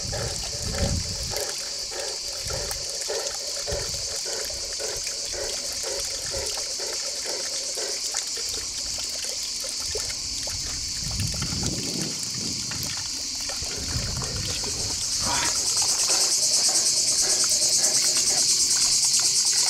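Water trickling and sloshing in a stone trough as a wet Newfoundland dog lies and shifts in it, with occasional low splashes. Insects chirr steadily behind it, louder in the last few seconds.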